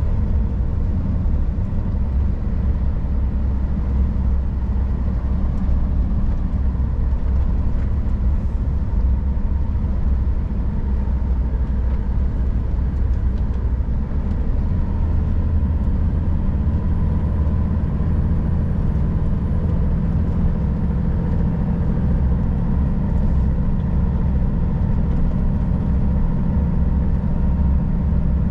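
Scania R440 truck's diesel engine running steadily under way, with road noise, heard from inside the cab as a constant low drone.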